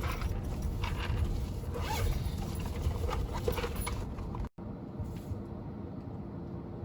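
MG HS SUV driving over rough, uneven ground: a low rumble with scattered knocks and crunches. About four and a half seconds in it cuts out for an instant, then resumes as a quieter, steadier rumble.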